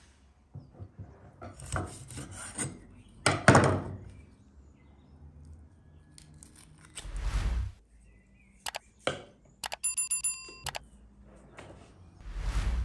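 Kitchen handling sounds of raw chicken drumsticks being worked in a stainless-steel colander and with a knife on a wooden chopping board: scattered knocks, rubs and scrapes, the loudest a few seconds in. A short, high ringing rattle sounds about ten seconds in.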